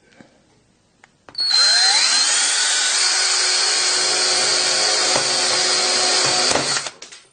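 18-volt drill spinning up about a second in with a rising whine, then running steadily at full speed for about five seconds as it bores into the middle of an iPhone 6, and stopping near the end.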